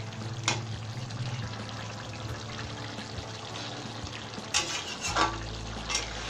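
A metal spoon stirring and spooning mustard-gravy fish curry in an aluminium kadai, the gravy sloshing. The spoon knocks and scrapes sharply against the pan about half a second in, and a few more times near the end, the loudest of them.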